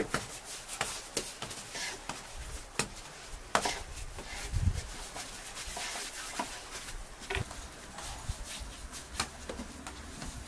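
Hands pulling apart and setting down balls of lavash bread dough on a floured wooden board, making irregular soft pats and taps. A duller thump comes a little before halfway.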